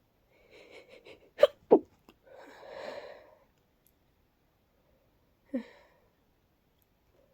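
Sneezing fit from a person whose nose is congested with a starting cold. A few quick breathy catches of breath build up to two sharp sneezes in quick succession, followed by a longer breathy rush of air, and another sneeze comes a few seconds later. The sneezes sound congested and breathy.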